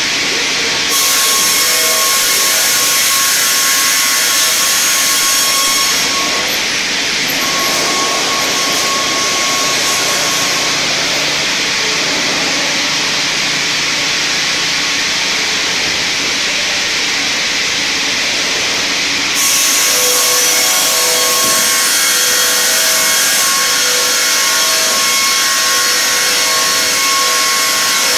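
StrojCAD D9 double-bladed circular sawmill running, with a steady whine from the saw head and dust extraction under loud hissing machine noise. The noise grows louder and hissier about a second in and again about two-thirds of the way through, for several seconds each time, as the blades work through the spruce log.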